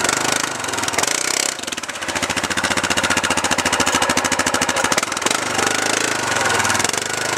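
ATV engine running at low revs. From about a second and a half in to about five seconds it settles into a fast, even chugging.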